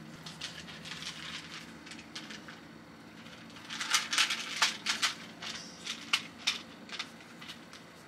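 Plastic blocks of a magnetic shape-shifting fidget cube clicking and snapping against each other as it is twisted and folded. There are scattered light clicks, then a quick flurry of them from about four to seven seconds in.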